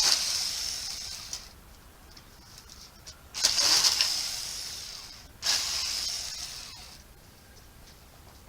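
Battery-powered Saker mini electric chainsaw run in three short bursts, one at the start, one about three seconds in and one about five and a half seconds in. Each burst starts suddenly as a hissy whir and fades off over a second or so.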